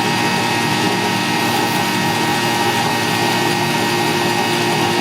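Electric power tool running at a steady speed, with a constant motor whine over a rough grinding noise.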